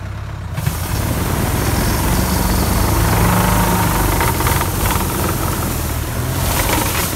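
Tractor engine picking up to full power about half a second in as its trunk shaker clamps and vibrates an olive tree, with a steady rushing hiss from the shaken branches and olives falling onto the catching net's canvas.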